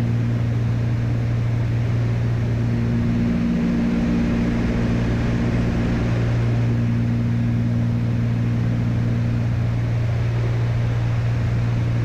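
Cessna 310's twin piston engines and propellers running steadily in flight, heard inside the cockpit as a constant drone. The lowest tone wavers briefly about four seconds in.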